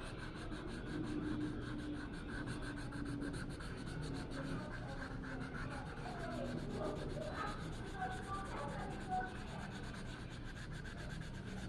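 Continuous soft rubbing and scraping, steady in level.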